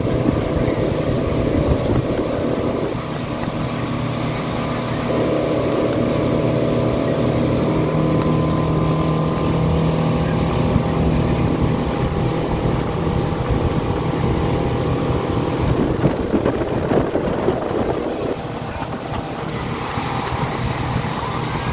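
Motorboat engine running steadily at towing speed, with the rush of its churning wake and wind on the microphone.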